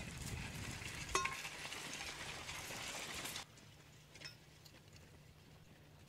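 Horse-drawn plough working through stubble and soil close by: a crackling rustle with a single metallic chink of harness about a second in. A little past halfway it drops suddenly to a faint background.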